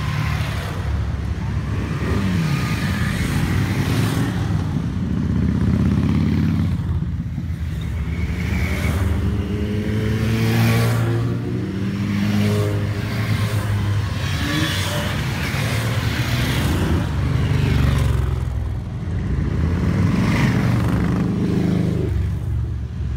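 Motorcycles riding past close by, one after another. Their engines swell and fade as each one passes, with the pitch rising and falling as riders accelerate away.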